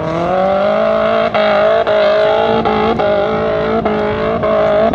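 Off-road 4x4 engine revving hard and held at high revs under load while climbing a steep dirt slope. The note rises at the start, then holds, with brief dips about every half second to a second.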